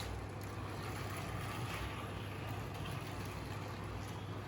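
A steady low hum with an even hiss over it, without distinct knocks or changes.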